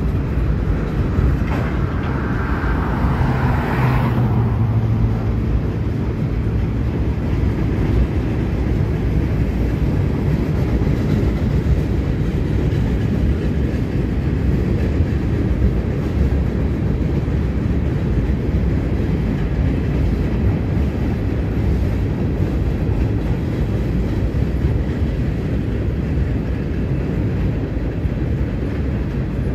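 Freight cars rolling across a steel trestle: a steady, dense rumble of wheels on rail with some clickety-clack. A brief higher-pitched squeal fades out about four seconds in.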